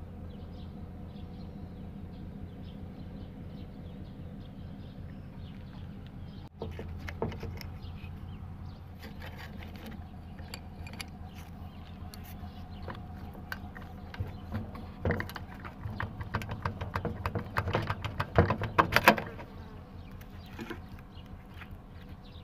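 Wrench and small metal parts clicking and rattling against a scooter engine's crankcase as the oil pump is unbolted and lifted off. A steady low hum comes first; about six seconds in the clicks begin, and they grow dense and loud from about fifteen to nineteen seconds in.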